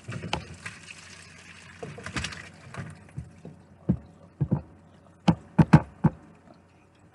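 Hot cooking water poured off a pot of boiled ziti into the kitchen sink: a splashing rush for the first two or three seconds, then several sharp knocks as the pot and its lid bump against the sink.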